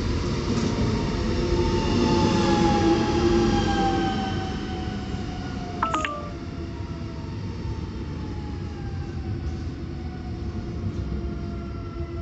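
Newag Impuls 45WEa electric multiple unit running slowly past, its traction drive whining in several tones that fall steadily in pitch as the train slows, over the rumble of the wheels. A short, sharp double beep sounds about halfway through.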